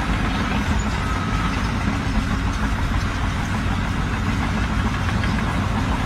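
An engine running steadily, a low, even sound with no change in speed.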